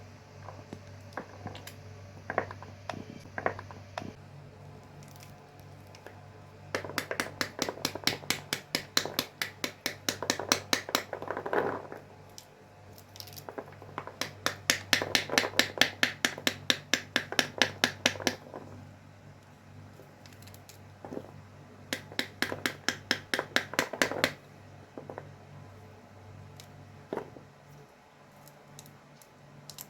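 Rapid chopping with a knife on a cutting board: three runs of even strikes, about five a second, with a few single knocks in between.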